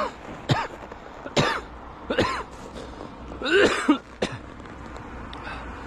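A man coughing and clearing his throat, five or six short harsh coughs spread over about four seconds.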